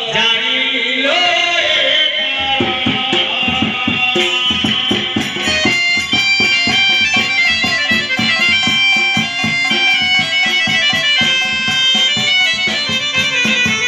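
Live folk music: a wavering held melody line at the start, then hand-played drums come in with a fast steady beat, and an electronic keyboard plays a melody over them from about five seconds in.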